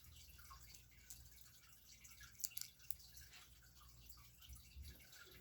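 Near silence with a few faint, light clicks of small plastic LEGO pieces being handled, a small cluster of them about two and a half seconds in.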